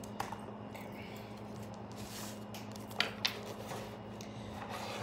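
A deck of tarot cards being picked up and shuffled by hand: soft rustling of the cards, with two sharp clicks about three seconds in.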